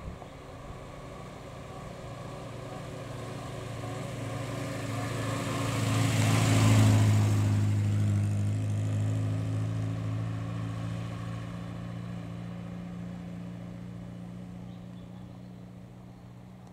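Morris Minor Traveller's four-cylinder A-series engine driving up, passing close by about seven seconds in, and pulling away. Its steady engine note grows louder, peaks with a rush of noise as the car goes by, then fades.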